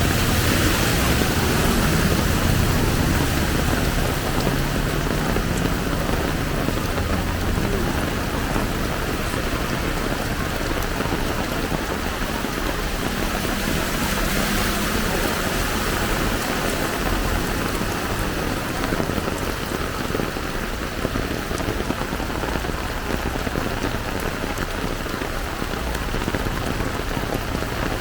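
Heavy rain pouring down in a steady hiss. A low rumble is added in the first few seconds.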